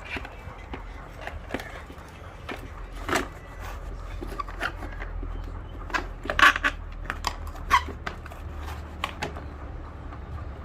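Scattered clicks and knocks of hand tools and plastic trim parts being worked loose while the cool box is dismantled to reach its fan motor, with a louder cluster of knocks about six seconds in, over a low steady hum.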